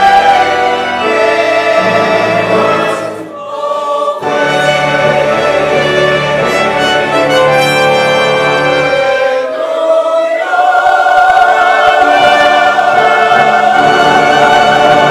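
Mixed church choir singing a hymn anthem in sustained full chords. There is a brief lull about three seconds in, then a louder held chord from about ten seconds in.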